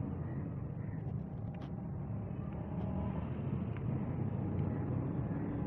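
A steady low mechanical rumble with no speech, with a few faint light clicks of a chainsaw carburetor and its small metal parts being handled.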